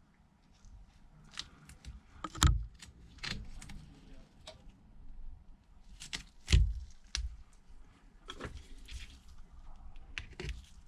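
Scattered small clicks and taps of hands, tools and parts handled on a repair bench, with two louder knocks about two and a half and six and a half seconds in.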